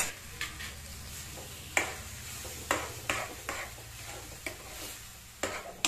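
Steel spoon stirring and scraping in a metal kadai as mashed roasted eggplant is mixed into tomato masala, with several sharp clinks of spoon against the pan and the masala sizzling underneath.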